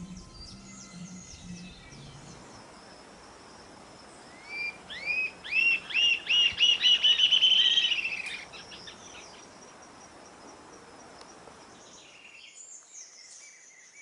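Rufous-tailed jacamar singing: a run of high, upslurred whistled notes that speed up into a fast trill and then fade, over a steady insect buzz. Other birds chirp briefly near the end.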